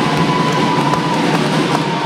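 Music over a loud, steady din in a gymnasium, with a long steady high tone.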